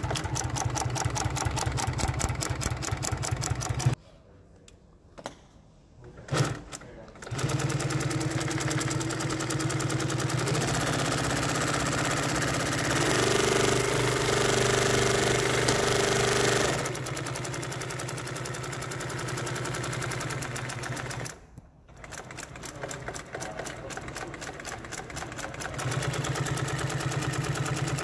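Singer 212U double-needle industrial sewing machine, servo-driven, stitching at speed with a fast, even needle clatter. It stops for about three seconds a few seconds in and drops out briefly again about three-quarters through, then runs on.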